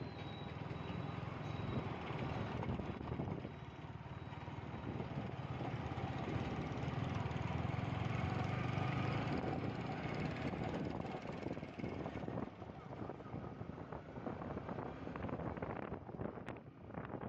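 Yamaha R15 V3's single-cylinder engine running as the motorcycle is ridden, mixed with wind and road noise; the sound grows louder through the middle and there are a few sharp knocks near the end.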